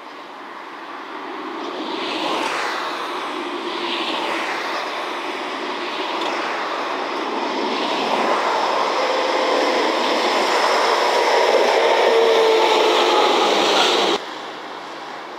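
A DE10 diesel-hydraulic locomotive running light, its diesel engine and wheels on the rails growing steadily louder as it approaches and passes close by, with a steady humming tone. The sound cuts off suddenly near the end.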